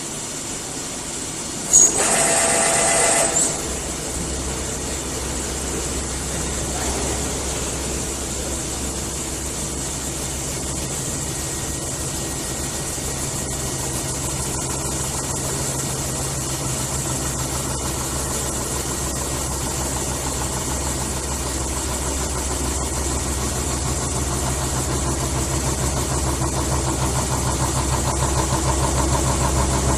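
CNC metal spinning machine running: a brief loud squeal of about a second and a half near two seconds in, then a steady low hum that slowly grows louder.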